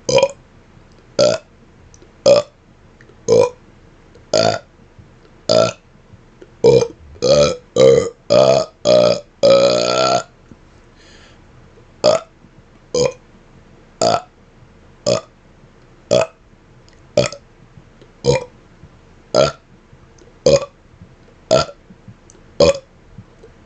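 A man burping in a steady series of short burps about one a second. A quicker run of longer burps comes around seven to ten seconds in and ends in a longer burp, after which the single short burps about a second apart resume.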